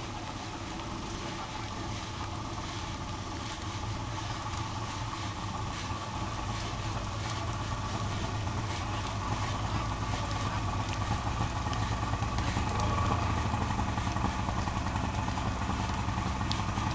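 Small engine running steadily at idle, growing gradually louder.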